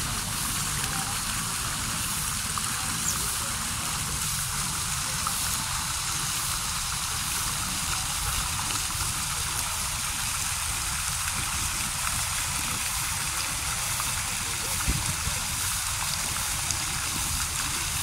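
Small fountain jets spraying into a pond and splashing steadily on the water.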